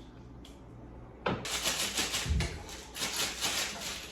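Plastic packaging crinkling and rustling as it is handled, starting suddenly about a second in, with a dull thump midway.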